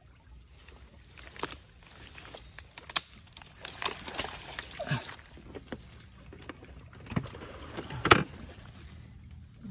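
Hands handling a caught fish and a container on a motorbike: rustling with scattered knocks and clicks, the loudest knock about eight seconds in.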